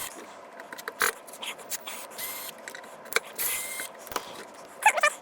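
Clicks, light knocks and short scraping sounds of metal parts and hand tools being handled during a power supply teardown, with a brief wavering squeak near the end.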